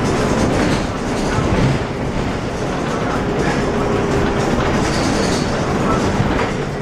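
Cabin noise of an Irisbus Citelis city bus under way: steady engine and drivetrain sound, with the interior fittings rattling.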